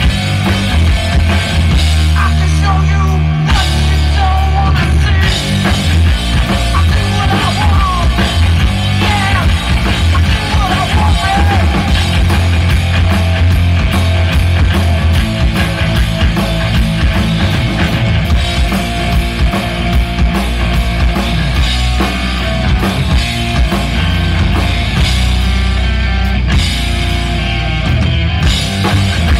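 Live rock band playing loud: electric guitar, bass guitar and drum kit together, with the bass dropping out briefly about two seconds in.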